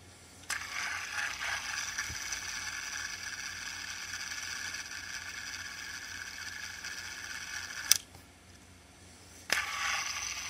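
Handheld fidget spinner whirring steadily on its bearing after a flick, stopped with a sharp click about eight seconds in. Shortly before the end it is spun up again.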